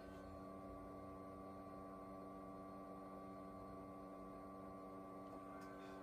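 Faint steady hum from an Atwater Kent Model 10 1923 breadboard radio receiver's audio output: several held tones with no station speech, as the tuning dial is turned. The highest tone drops out just after the start and comes back near the end.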